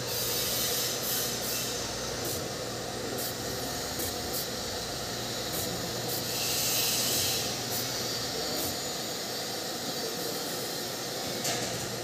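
Asahi 1/3 hp clutch motor for an industrial sewing machine running unloaded at high speed: a steady electric hum under an even airy hiss, with a few faint ticks.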